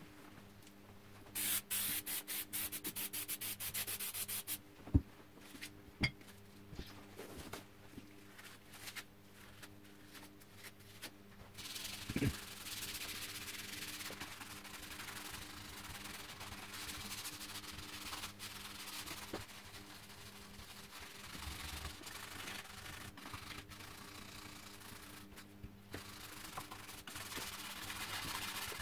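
Brush scrubbing the bare wooden stock of a Swedish M1815/45 musket, wet with a mildly acidic wood-cleaning foam: a fast run of short strokes about a second and a half in, a few sharp knocks and scattered scratches, then steady scrubbing from about twelve seconds in.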